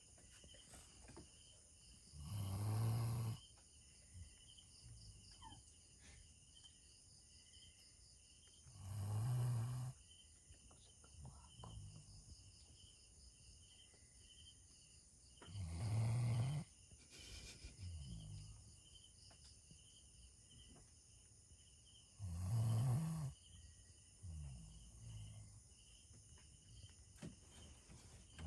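A sleeping Doberman pinscher snoring: four loud snores about six and a half seconds apart, each lasting about a second, with softer breathing between them.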